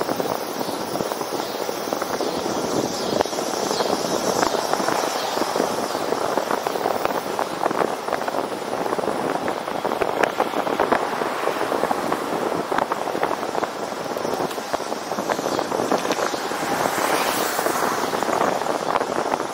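Wind rushing and crackling over the microphone of a camera on a moving road bike, mixed with tyre and road noise at riding speed.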